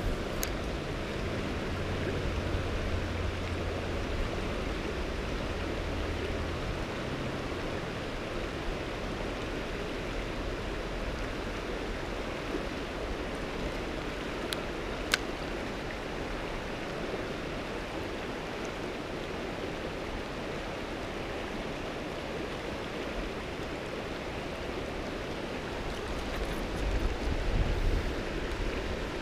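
Creek water running steadily over rocks and riffles in a shallow creek, with a couple of faint clicks about halfway through.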